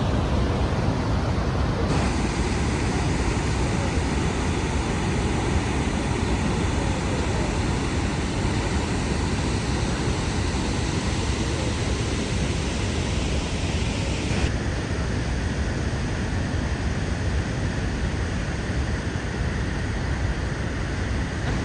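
Steady rushing roar of Niagara Falls, a dense even noise of falling water with no pauses. Its upper hiss changes abruptly twice, about two seconds in and again about two-thirds of the way through.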